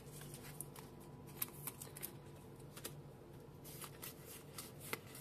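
Trading cards being flicked through by hand, the card stock sliding and snapping against itself in a series of soft, irregular clicks.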